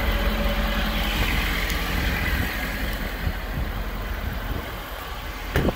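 Ford Super Duty pickup's engine idling, a steady low rumble that slowly grows fainter, with a short knock near the end.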